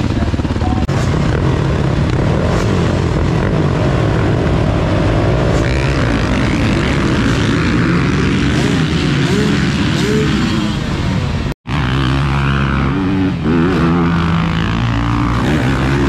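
A pack of motocross dirt bikes running together, loud, their engines revving with rising and falling pitch as the riders leave the starting gate. After an abrupt cut about two-thirds of the way in, dirt bikes again rev and pass on the track.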